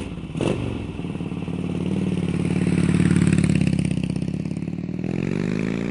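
Motorcycle engine running with a quick pulsing beat. It grows louder over the first few seconds, eases back, then climbs in pitch near the end as it revs.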